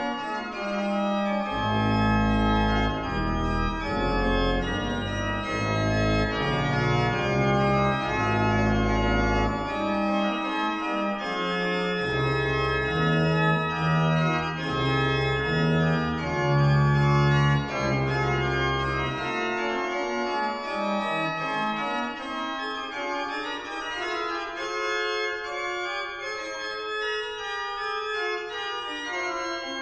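Baroque chorale prelude played on a sampled Arp Schnitger pipe organ: several held and moving manual voices over a deep pedal bass line. About 19 seconds in the pedal bass falls silent, and only the manual voices go on.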